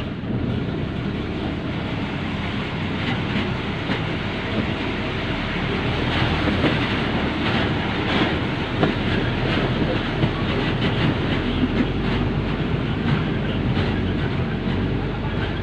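A moving vehicle: a steady rumble with frequent short clicks and rattles.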